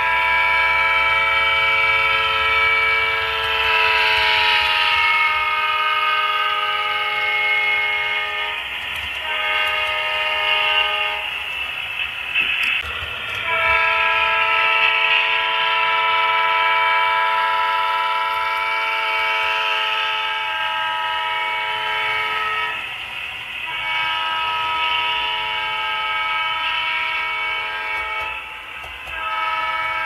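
QSI sound decoder in an HO-scale ALCO C420 model locomotive sounding its multi-note diesel air horn with the Doppler effect: long horn blasts whose chord steps down in pitch several times, as if the locomotive were passing by. There is a brief break with a click about twelve seconds in before the horn sounds again.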